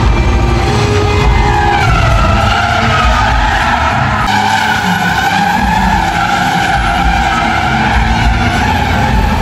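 Three stunt cars drifting in circles on a smooth concrete arena floor: their tyres squeal in long, wavering tones over the sound of the engines running.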